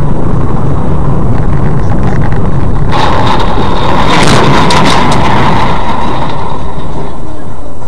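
Dashcam recording from inside a moving car: loud, steady road and engine noise. About three seconds in, a car ahead crashes, and a sudden loud burst of crash noise lasts for some four seconds before easing off.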